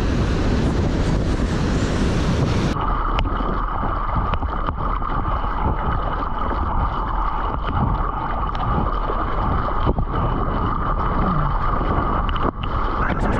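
Wind buffeting the camera microphone over breaking surf. About three seconds in, it gives way to water rushing and splashing around a surfboard being paddled out through the surf, with a steady high tone underneath.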